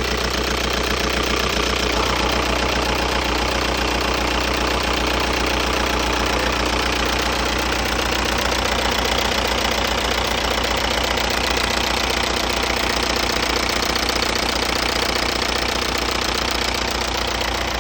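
ALH 1.9 L four-cylinder turbo-diesel of a 2002 VW Jetta TDI idling steadily with an even, rapid clatter, running after its Bosch injection pump has been resealed with new upper and lower body gaskets.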